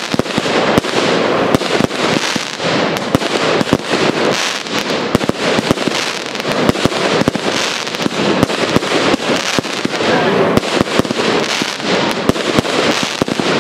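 Professional fireworks display: aerial shells launching and bursting in a dense, unbroken barrage of sharp bangs and pops over a continuous crackling hiss.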